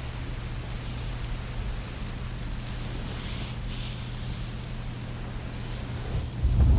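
Steady rain ambience, an even hiss of falling rain. A deep rumble swells up near the end.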